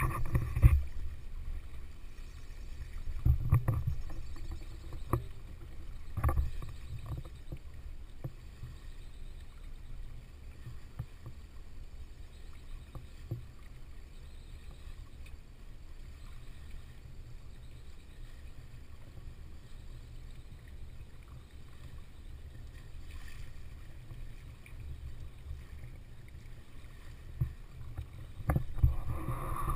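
Wind noise on a GoPro's microphone held out on a boat hook from a small sailboat under way, with water washing along the hull and a few knocks early on. It grows louder near the end.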